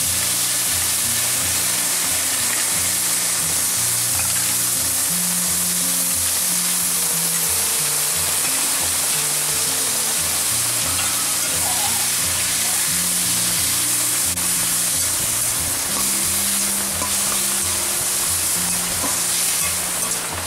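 Vegetables and greens frying in hot mustard oil in an iron wok, a loud steady sizzle, while a metal spatula stirs them. Background music with low notes plays underneath.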